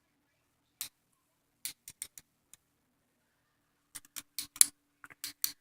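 Plastic handles of a Lego butterfly knife clacking as it is flipped: a single click about a second in, a few around two seconds, then a quick run of clicks in the last second and a half.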